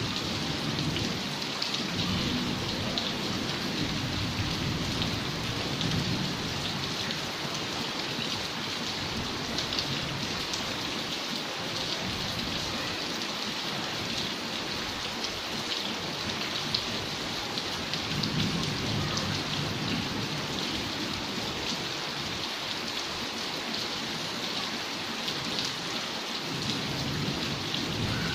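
Steady rain falling, a dense hiss of many small drop ticks, with a deeper low swell near the start and again about two-thirds of the way through.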